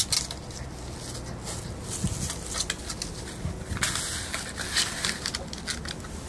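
Kelpie puppy chewing and shaking a stiff dried-hide chew: scattered crunching and crackling, with a dense burst of crackling about four seconds in.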